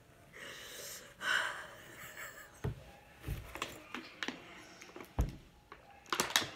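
A woman breathing hard and sniffling through a tissue, her mouth burning from chili-spiced noodles. A few soft thumps follow, then sharp crinkly clicks near the end as she handles a plastic water bottle and drinks.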